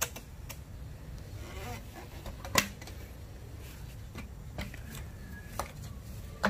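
Scattered light clicks and knocks of a removed plastic intake manifold with its throttle body being handled and turned over on a concrete floor, one louder knock about two and a half seconds in, over a low steady hum.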